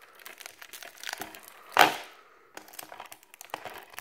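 Plastic wrapping on a sealed DVD case crinkling as the case is handled, with one louder sharp crack near the middle.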